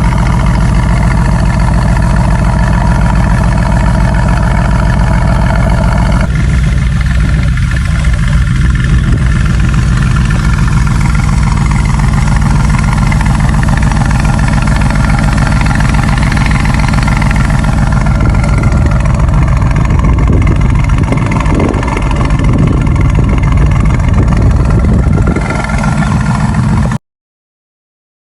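Mercedes-AMG GT S twin-turbo 4.0-litre V8 idling steadily with a deep, even exhaust note. The sound cuts off suddenly just before the end.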